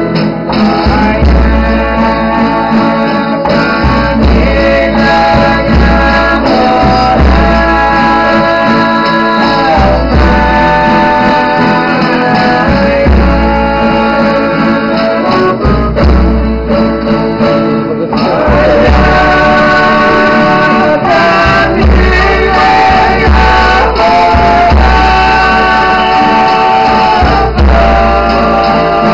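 Folia de Reis folk group singing: men's voices together holding long drawn-out notes over string instruments and a low pulsing beat, with a short break about two-thirds of the way through before the next verse starts.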